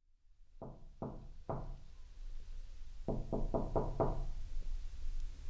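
Knocking on a door: three knocks, a short pause, then five quicker knocks.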